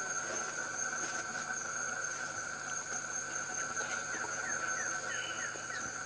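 Tropical rainforest ambience: a steady insect drone at two high pitches. A little over four seconds in comes a quick run of short falling notes.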